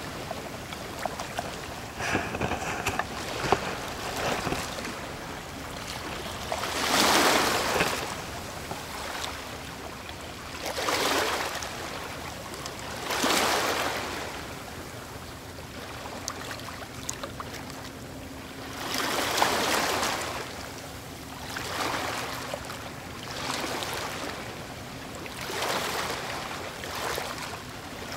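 Sea water lapping and splashing around a camera held at the waterline, swelling up every two to three seconds.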